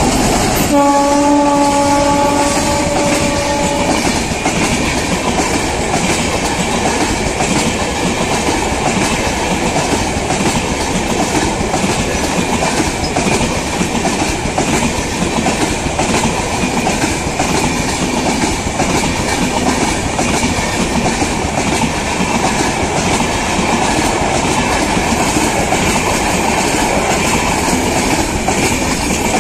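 A WAP-7 electric locomotive sounds its horn in one steady blast of about three seconds, just under a second in, as it passes close by. Its train of LHB passenger coaches follows, running past with a steady rush and the clatter of wheels on the rails.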